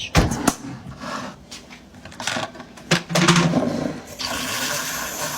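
Knocks and clatter of kitchen containers, then from about four seconds in a steady whirring hiss that carries on, typical of an electric frother whipping half-and-half into cold foam.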